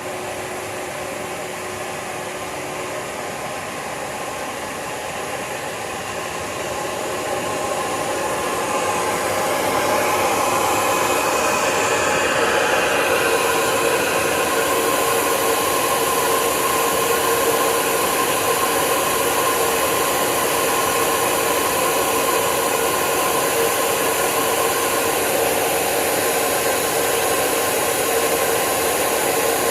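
Spindle of a 4-axis CNC wood router running, a steady whirring whine over rushing noise, growing louder over the first ten seconds or so and then holding level.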